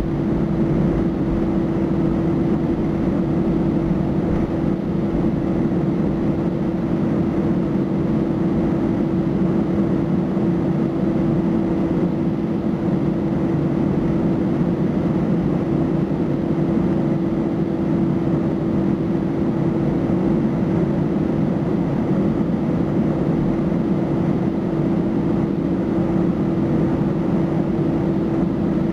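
Cabin noise inside an Airbus A318-111 taxiing on idle engine thrust: a steady hum of engines and air conditioning with one constant low tone running through it.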